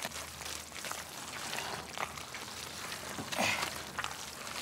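Gloved hands kneading red chili seasoning paste through cabbage for kimchi in a large basin: wet squishing and crackling with many small irregular clicks, a little louder a bit after three seconds in.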